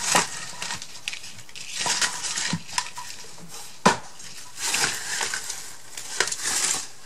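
Craft materials being handled on a tabletop: a few sharp clicks and knocks of small hard objects set down or picked up, with brief rustles in between, the loudest knock about four seconds in.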